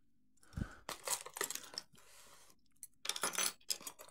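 Metal keys on a key ring clinking, with several short rattles and clicks and a spell of light rustling from items being handled in a small cardboard box.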